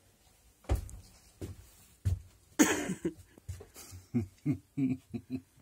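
A hinged wooden locker lid being handled, giving a few knocks and one louder scraping rustle about two and a half seconds in. It is followed in the second half by a run of short voiced sounds from a person, a fraction of a second apart.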